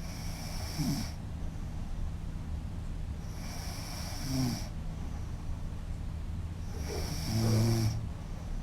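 A woman snoring, three snores about three and a half seconds apart, each about a second long, the last one the loudest.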